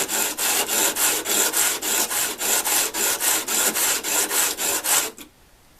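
Planer blades clamped in a sharpening jig being rubbed back and forth on 120-grit sandpaper for lapping, a fast rhythmic scraping of about four to five strokes a second. The strokes stop about five seconds in.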